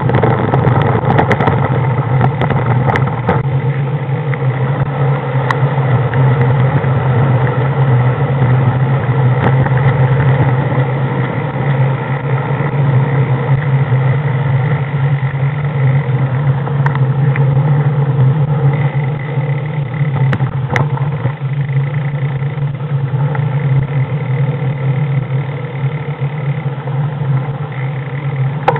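A vehicle's engine running steadily at low speed, heard from on board while driving slowly, with a few light clicks and rattles.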